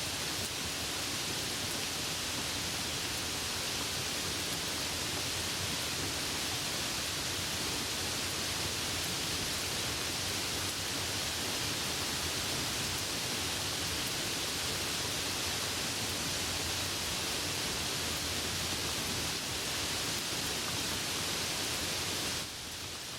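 Steady, even hiss of heavy rain with no separate drops standing out. The level drops slightly and suddenly near the end.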